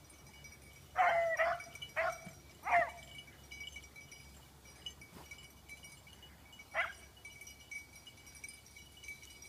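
Beagles baying as they run, in short calls that drop sharply in pitch: a cluster of three or four over the first three seconds, then a single call near seven seconds.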